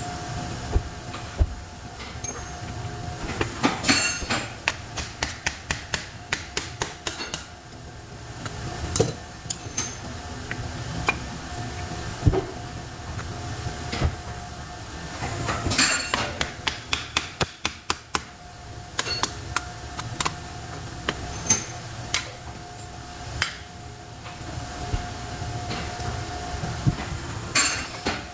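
Hammer striking metal in runs of rapid blows, several a second, with pauses between the runs, typical of knocking parts of an electric motor loose during disassembly. A steady faint hum runs underneath.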